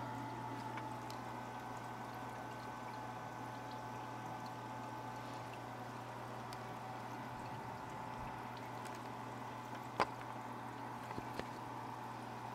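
Steady trickling of a reef aquarium's circulating water over a constant low pump hum. A single sharp click about ten seconds in, followed by a few faint ticks.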